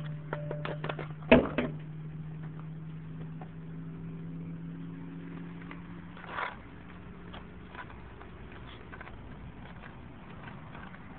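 A CO2 paintball marker firing one sharp, loud shot about a second in, after a few light clicks of handling, with a weaker pop near six seconds. A steady low hum runs underneath and fades out around seven seconds.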